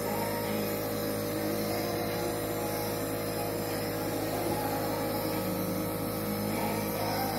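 Steady hum with a few constant tones, unchanging throughout.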